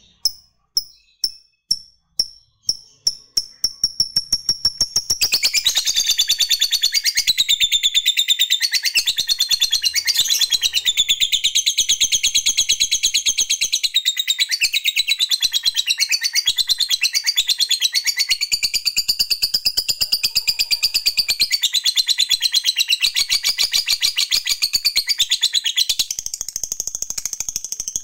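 Lovebird ticking in single sharp high notes that come faster and faster, then breaking about five seconds in into a long, continuous rapid chattering trill, the prized 'ngekek panjang' (long trill), which runs about twenty seconds and softens near the end.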